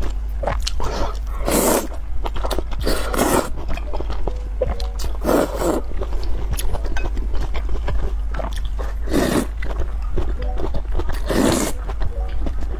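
Close-miked slurping and chewing of noodles in spicy soup: about eight short, loud slurps at irregular intervals, with quieter chewing between them.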